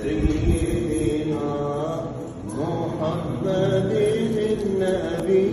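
Melodic religious chanting: voices holding long notes that glide up and down between pitches.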